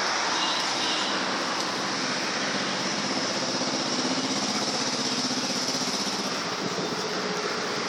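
A small engine running steadily, heard as a fast, even pulsing under a constant rush of noise.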